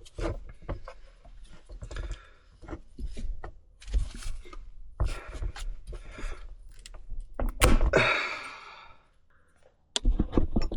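Handling noises in a garage: a string of knocks and thuds as the camera and a work light are set down and moved, with a louder rasping scrape near the end.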